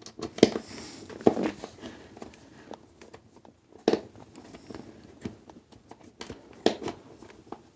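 Screws being driven by hand with a screwdriver through flat metal mending plates into a panel: irregular clicking and scraping, with a few sharper knocks of the tool and hands against the plates.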